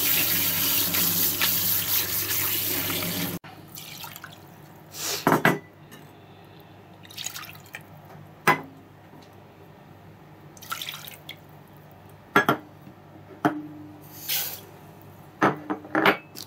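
Tap water spraying steadily onto pieces of dried herring in a wire-mesh strainer over a stainless-steel sink, cut off abruptly after about three and a half seconds. Then scattered short clinks and knocks, some ringing briefly, as an aluminium pot is handled.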